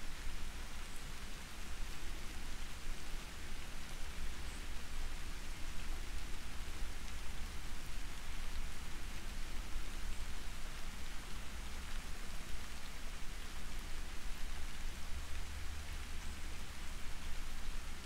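Soft, steady rain falling: an even hiss of drops, with a low rumble underneath.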